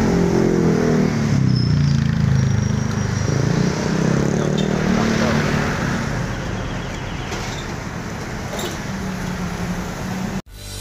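Motor vehicle engines running close by, rising and falling in pitch as they pass, over traffic noise; the sound cuts off abruptly near the end.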